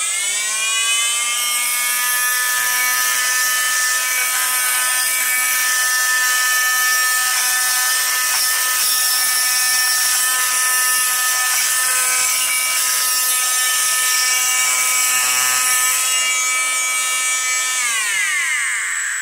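Oscillating multi-tool with a round diamond-grit masonry blade, grinding against hard tile mortar on a concrete floor. It makes a steady, high buzz with a gritty hiss. The pitch climbs as the tool spins up at the start, then drops as it winds down about a second before the end.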